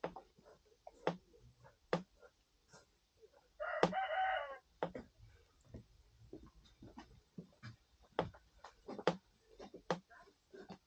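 A rooster crows once, briefly, a little before the middle. Scattered light clicks and knocks are heard throughout.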